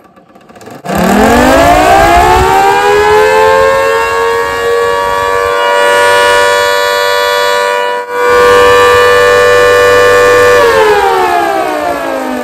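Miniature 3D-printed Thunderbolt-style dual-tone siren, its rotor driven by a 775 DC motor at full power. It winds up with a rising wail to a loud, steady two-tone howl, dips for an instant about eight seconds in, then winds down with falling pitch near the end.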